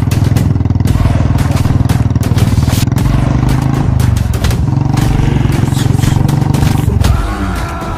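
Motorcycle engine running loudly with a fast, even firing beat. It dips briefly about halfway and cuts off about seven seconds in.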